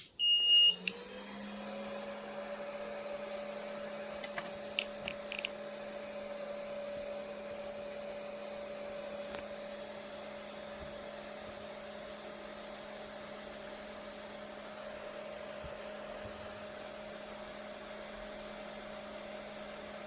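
A 3D printer gives a short high beep, then its fan spins up and runs with a steady hum. A few faint clicks come about five seconds in.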